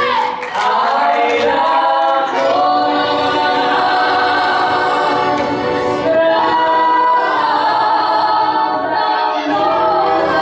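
Live Romani folk music: voices singing together over accordion, violin and acoustic guitar.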